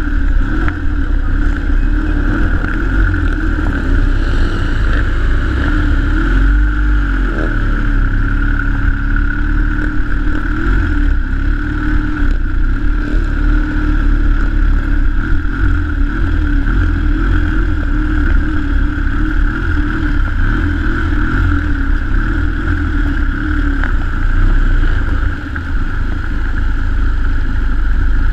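Triumph 750 parallel-twin motorcycle engine running at low speed, recorded close up from the handlebars, its pitch rising and falling slightly with the throttle. A brief dip in level comes near the end.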